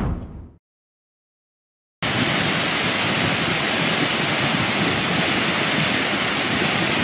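Muddy flash-flood water rushing under a concrete road bridge, a steady loud rush. It cuts in suddenly about two seconds in, after a short dead silence that follows the fading tail of an intro sound.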